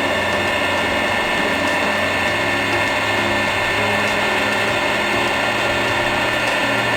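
Two-spindle drilling machine running: a steady motor whine over a low hum, without a break.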